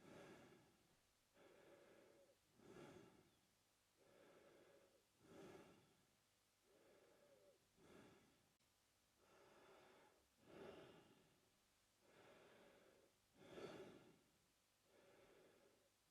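A man breathing steadily and slowly through his mouth, about six full breaths. Each breath is a softer, longer draw followed by a louder, shorter one.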